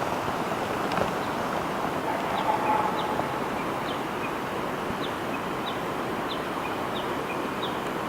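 Outdoor ambience: a steady rushing noise with a run of short, high chirps, about two a second, starting a couple of seconds in.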